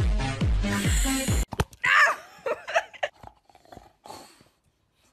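Electronic dance music with a steady kick-drum beat that cuts off about a second and a half in. Then a few clicks and short, wavering vocal noises from a bulldog.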